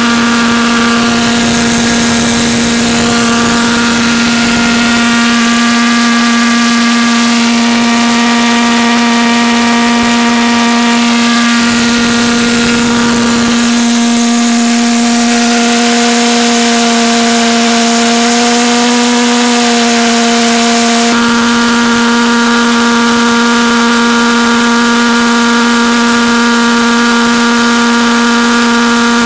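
Beck Technologies 4 lb thrust Thermojet, a valveless pulsejet running on propane: a loud, steady pitched drone rich in overtones. Its tone shifts slightly about twenty seconds in.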